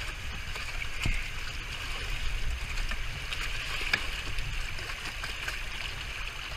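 River water rushing and lapping against an inflatable pontoon boat over a steady low rumble, with a couple of light knocks about one second and four seconds in.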